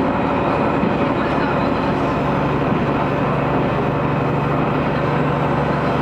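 Aizu Railway AT500-series diesel railcar running, heard from inside the passenger car: a steady engine drone with wheel and rail noise, a low steady engine note settling in about two seconds in.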